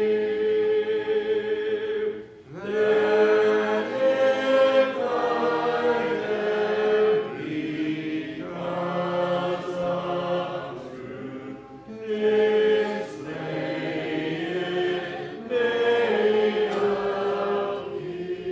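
Congregation singing a metrical psalm in slow, held lines, with brief breaks for breath between phrases.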